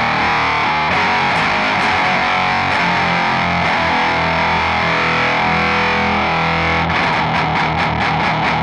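Electric guitar played through a Boss HM-2 Heavy Metal distortion pedal with all controls maxed, giving a thick buzzsaw-distorted riff with sustained chords, then a run of rapid picked notes near the end.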